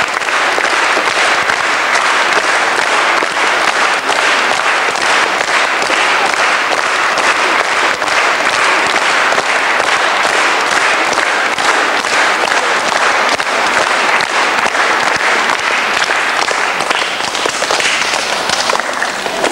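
A large crowd applauding, a dense, steady clatter of many hands clapping at once that holds throughout.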